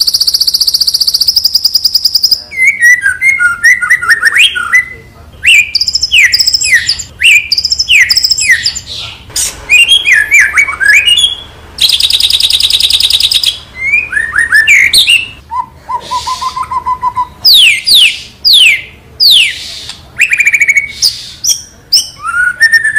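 Murai batu (shama) singing loud and full: a rapid, high rattling trill, then a string of varied whistled phrases with quick downward slurs, another fast trill about midway, and a lower warbled note a little later.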